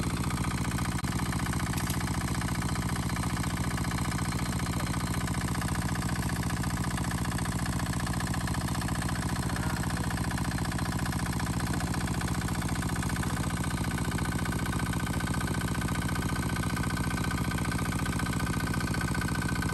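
Small engine running steadily at a constant speed, the engine-driven water pump that drains the fishpond.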